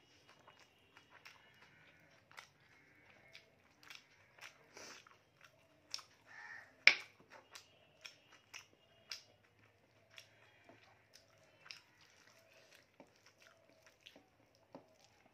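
Close-up eating sounds: chewing and lip smacks, with fingers squishing and mixing rice on a plate, in a run of short faint clicks. About halfway through, one sharp click stands out as the loudest sound.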